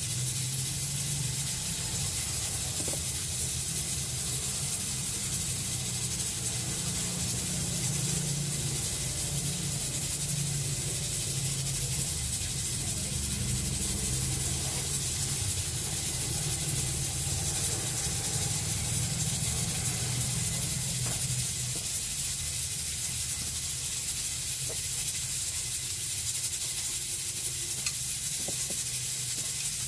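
Steady background hiss with a low hum underneath, broken by a few faint clicks.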